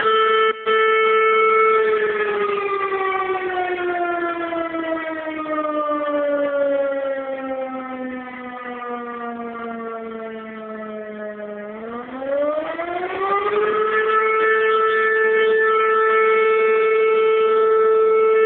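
Motor-driven fire station alarm siren sounding one steady wail. It winds down slowly in pitch over about ten seconds, then climbs quickly back up and holds its steady note again.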